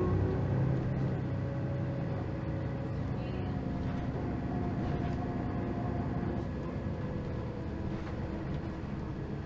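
Mercedes-Benz O530 Citaro Ü city bus heard from inside the passenger cabin while driving: steady engine and drivetrain drone with road rumble and a faint whine, easing a little over the first few seconds.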